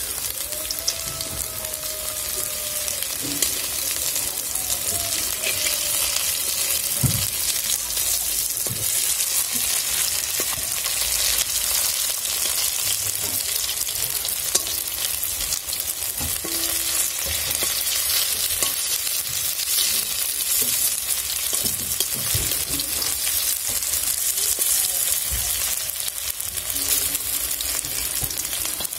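Lentil-batter pumpkin-flower fritters frying in hot oil in a steel kadai: a steady sizzle, with a few short knocks of a steel spatula turning them. The fritters are fried through, at the end of frying.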